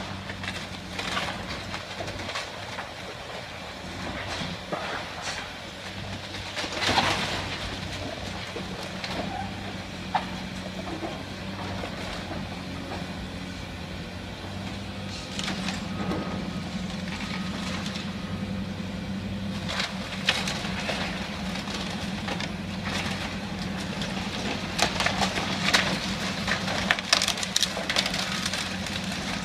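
Caterpillar tracked excavator's diesel engine running steadily while its bucket tears apart a wood-frame house, with timber cracking and debris crashing down. The loudest crash comes about seven seconds in, and a cluster of crashes comes near the end.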